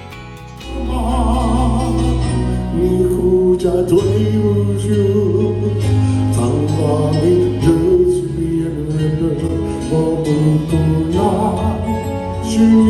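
A vocal group singing a song with instrumental backing. It comes in loudly under a second in, with sung lines over a steady bass.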